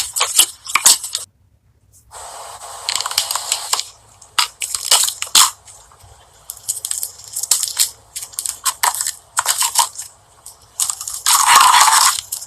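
Slime being squished and pressed by hand, giving runs of crackling, popping clicks. There is a short gap a little over a second in, and a longer, louder crackling squish near the end.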